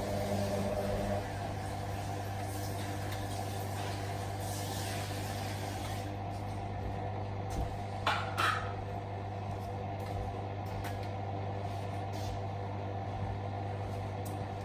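Hotpoint WM63P washing machine in its wash phase: the drum motor stops about a second in, and the drum coasts to rest with the wet towel load swishing. A steady low hum runs on during the pause between tumbles, with a brief gurgle or clunk a little past the middle.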